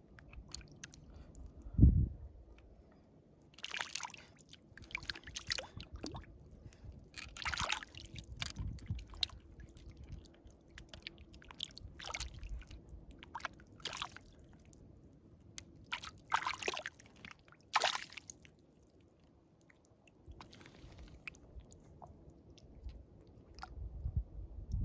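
Intermittent soft clicks, rustling and light sloshing of water, with a single low thump about two seconds in.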